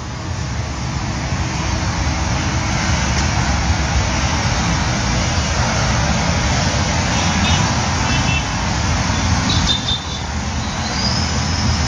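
Steady road traffic noise from passing vehicles, with a few faint high tones near the end.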